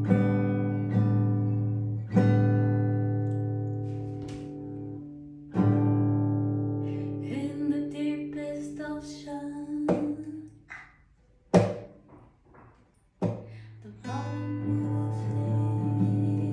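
Background music: strummed acoustic guitar with a singing voice in the middle, breaking off briefly about two-thirds of the way through before the guitar comes back.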